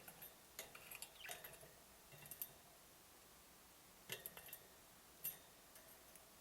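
Pet budgies making faint, scattered clicks and brief chirps in a few small clusters, with quiet gaps between them.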